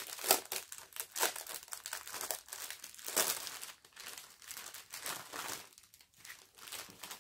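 Thin clear plastic bags crinkling in irregular rustles as small sachets of round diamond-painting drills are pulled out of a larger plastic bag and handled.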